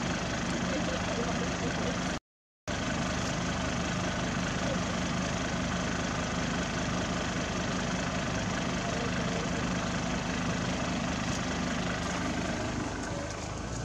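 An engine running steadily at idle, an even low hum. The sound cuts out completely for about half a second around two seconds in.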